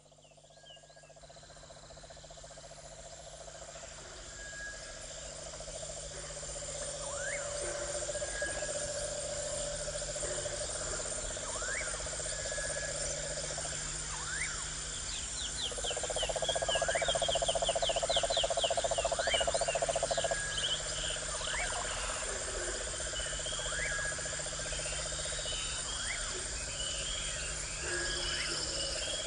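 Crickets and other insects trilling steadily, with frogs calling. Short rising calls repeat about every two seconds, and one call grows louder for about four seconds in the middle. The whole chorus fades in over the first few seconds.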